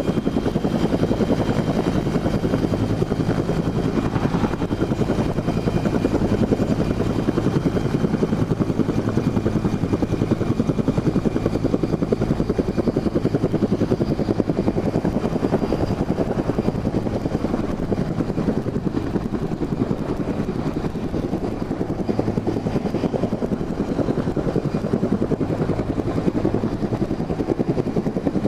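Search-and-rescue helicopter hovering close overhead: loud, steady rotor chop and engine noise.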